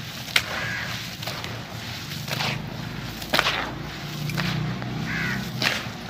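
Dry sand-cement chunks crumbling and falling into a shallow tray of water: a gritty, crunchy pour and patter of grit and lumps, with a few sharp cracks as pieces break.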